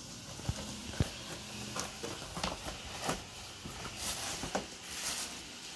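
A cardboard box being opened: scissors cutting through the taped edge, then cardboard flaps moving and plastic wrapping crinkling, heard as scattered sharp clicks and crackles.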